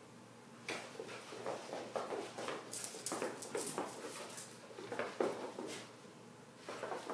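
Two dogs play-fighting: scuffling paws and claws on a tile floor and rug, with short growls, in irregular bursts. It starts suddenly about a second in and eases off for a moment near the end.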